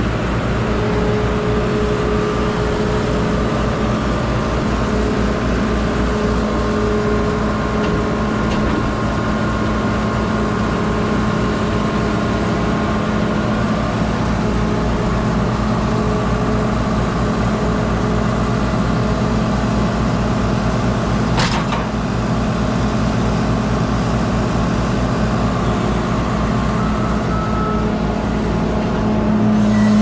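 Tractor engine running steadily, powering a sawmill through its PTO, with one sharp click a little past two-thirds of the way in.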